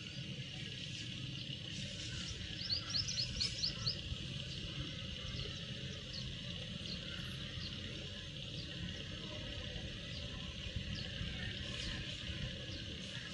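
Wild birds chirping: a quick run of about eight short, high chirps about three seconds in, then scattered single chirps. Under them is a steady high insect-like drone and a low rumble.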